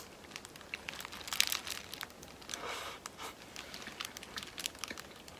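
Paper burger wrapper crinkling as it is handled, in scattered short crackles, with chewing.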